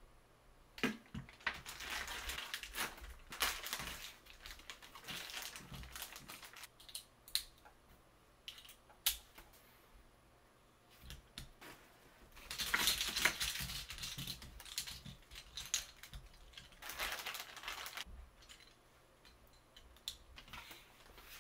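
Beyblade X spinning tops handled and set down on a desk mat: clicks and clatter of their metal and plastic parts, in several bursts of rattling, rustling noise.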